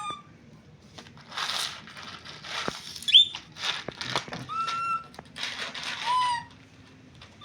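Baby monkey giving short high squeaks, about four times, between bursts of rustling and scuffling as it shuffles dry Whiskas cat snacks about on the floor.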